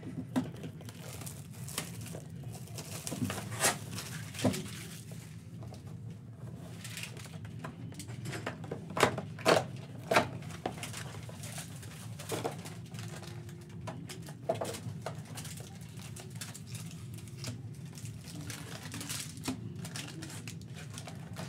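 Handling noise from a cardboard trading-card box being opened by hand: scattered taps and sharp clicks as the tape seal is peeled and the flaps opened, then foil card packs rustling as they are pulled out, over a steady low hum.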